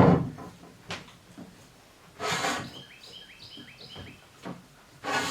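Square steel tube flexed by hand in a bending fixture: a click about a second in, then two short scraping rubs, one about two seconds in and one near the end. A small bird chirps repeatedly in the background.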